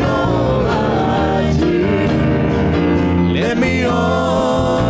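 Gospel worship song played by a live church band, with voices singing over the instruments.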